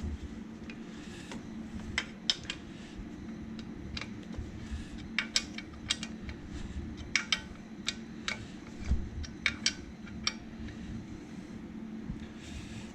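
Metal hand tools and engine parts clinking and clicking at irregular moments, the loudest cluster a few seconds in, over a steady low hum.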